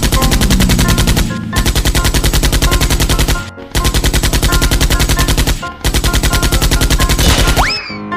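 Rapid-fire gunfire sound effect: four bursts of about ten shots a second, with short breaks between them. A rising whistle follows near the end.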